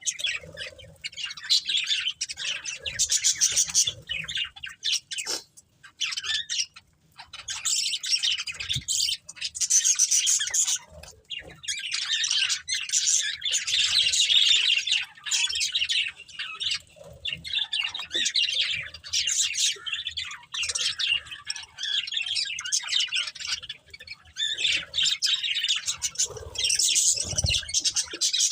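Budgerigars chirping and chattering almost continuously in fast, high warbling runs, broken now and then by short pauses.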